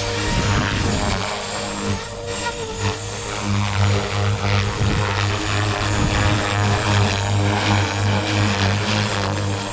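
Blade Fusion 360 electric RC helicopter flying in idle-up 2 (stunt mode), its rotor head and motor giving a steady buzzing drone that swells and dips in loudness as the blades load up through manoeuvres.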